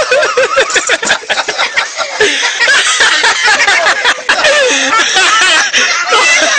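Loud laughter from several people at once, with overlapping voices.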